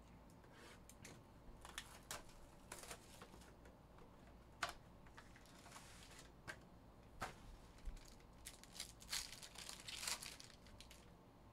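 Faint crinkling and rustling of a trading card box and its foil-wrapped card pack being handled and opened, in short scattered scrapes and light clicks. The busiest stretch is about nine to ten seconds in.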